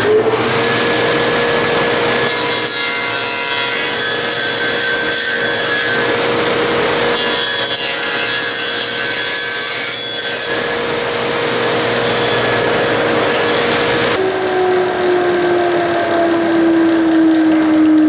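Table saw running with a steady blade whine, cutting through wood in two long passes. About 14 s in it is switched off, and the whine falls slowly as the blade coasts down.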